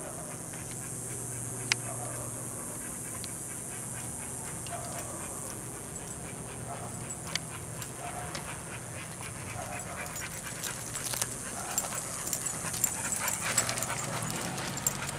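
Pit bull-type dogs panting as they walk on leash, over a steady high hiss. Light clicking and jingling, like collar tags and leash hardware, picks up near the end.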